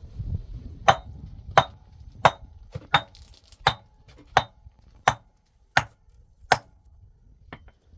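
A hand tool strikes nine times at an even pace, about one blow every 0.7 seconds, with a faint ring after some blows and a lighter tap near the end.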